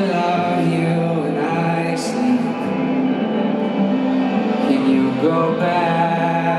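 Live pop concert music with singing, moving through long held notes.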